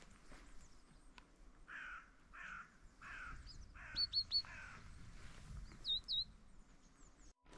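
Bird calls: a harsh, rasping call repeated five times about every 0.7 s, with thin, high chirps from small songbirds, three quick ones about four seconds in and a couple near six seconds.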